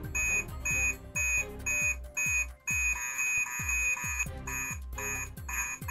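Background music with a steady thumping beat about two a second and high, alarm-like beeps in time with it; one beep is held for about a second near the middle.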